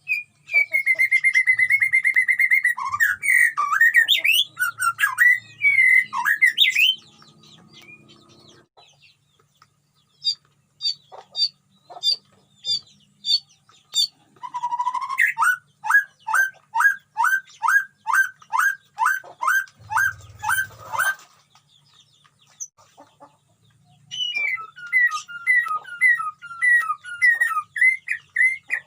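White-rumped shama song: a varied, warbling phrase for the first several seconds, then a run of about a dozen repeated slurred notes, and near the end a quick series of repeated chirps.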